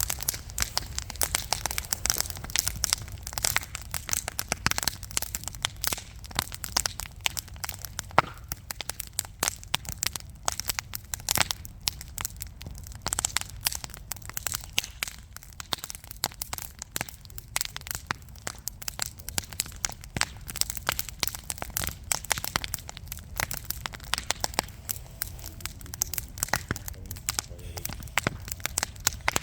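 Burning wood logs in a fireplace crackling and popping: a dense, irregular stream of sharp snaps over a low rumble of the flames, with a louder pop about eight seconds in.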